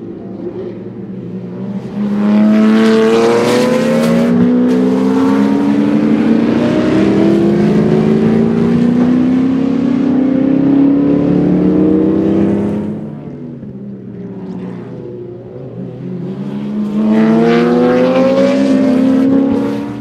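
Ford Sierra RS500's turbocharged 2.0-litre four-cylinder racing engine under hard acceleration. It gets loud about two seconds in, its note climbing steadily for about ten seconds. It drops back, then climbs again near the end.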